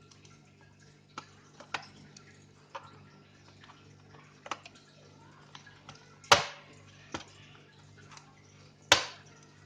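Small scattered clicks and knocks of a screwdriver and the laptop's plastic bottom RAM cover being unscrewed and opened, with two sharper, louder knocks about six and nine seconds in.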